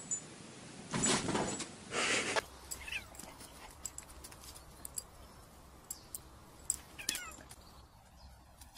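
Two loud cries from a pet, about a second apart, the first lasting most of a second. After them come quieter outdoor sounds with scattered clicks and two short falling chirps.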